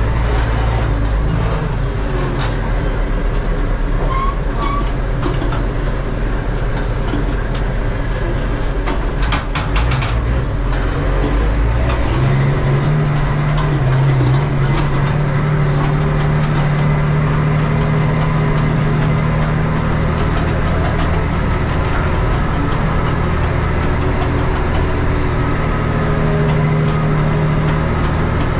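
Valmet 118 tractor's diesel engine running with a straight-through exhaust while pulling a seed drill. There is a short cluster of clattering knocks about nine to ten seconds in, and about twelve seconds in the engine note shifts and settles into a steady deeper drone.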